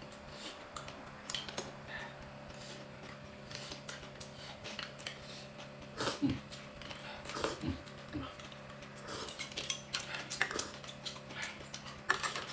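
Eating sounds at a table: a spoon and chopsticks clicking against a bowl and plates, with chewing and slurping of rice noodles, over a faint steady hum.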